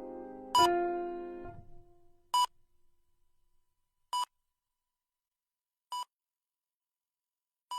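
A held electronic musical chord that dies away within the first second and a half, over a short, high electronic beep repeating about every 1.8 seconds and getting fainter with each beep.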